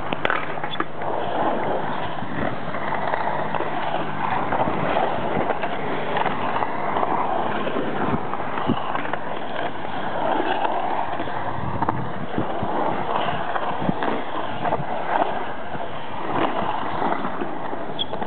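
Skateboard wheels rolling on a concrete bowl, the rumble swelling and fading as the rider carves back and forth across the walls, with a few sharp clacks of the board.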